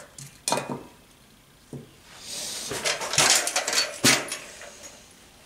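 A rolling shop stool being grabbed, tilted and dragged on a concrete floor: scattered clunks and knocks with a rattling scrape in the middle, and the loudest knock about four seconds in.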